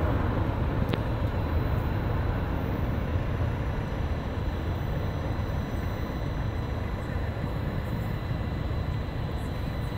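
Airbus A380's four jet engines at takeoff power as the airliner climbs away: a steady, deep rumble that slowly fades.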